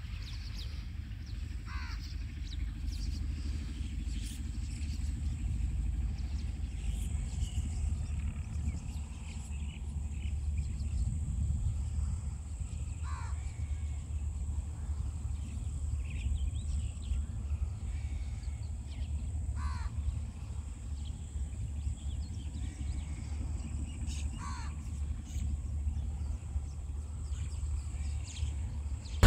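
Distant tractor engine running steadily as it pulls a harrow, heard as a low rumble. Four short bird calls falling in pitch sound over it.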